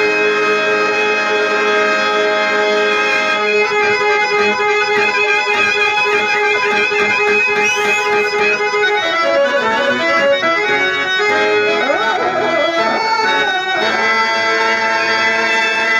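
Harmonium accompaniment playing an instrumental interlude. It holds sustained reedy chords at first, moves into a running melody after about three seconds, and returns to held chords near the end.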